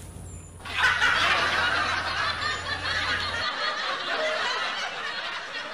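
Laughter, a dense snickering laugh like several people laughing together, starting about a second in and running on without a break.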